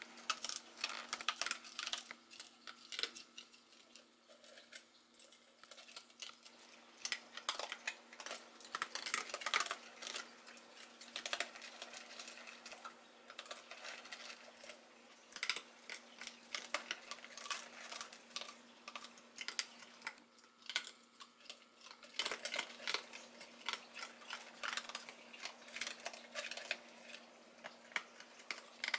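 Raccoon kits eating dry kibble from stainless steel bowls: a dense, uneven run of small crisp crunches and clicks as they chew and paw the pellets against the metal. A steady low hum runs beneath.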